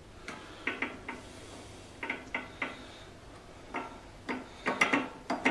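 Metal cover on the headstock end of a Vevor MX-S716G mini lathe being handled and opened: irregular light metallic clicks and knocks, coming thicker near the end.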